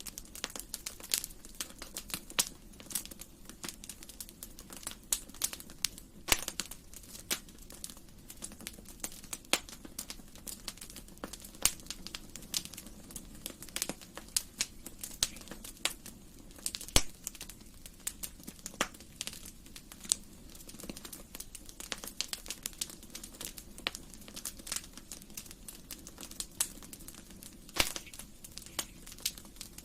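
Wood fire crackling in a fireplace: irregular sharp pops and snaps over a low, steady rush from the burning logs, with one louder pop about seventeen seconds in.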